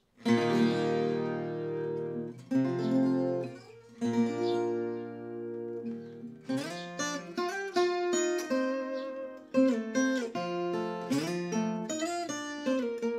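Brazilian viola caipira with a spruce top and Indian rosewood back and sides, played solo: three chords struck and left ringing, then a quicker picked passage of melody over chords from about six seconds in.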